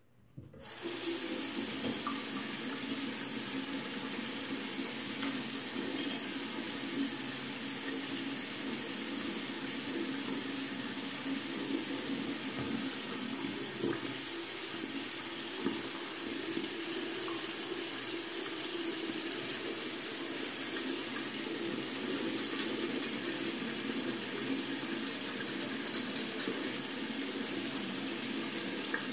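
Bathroom faucet running a steady stream into a porcelain sink, turned on about half a second in, with a few small clicks over the rushing water.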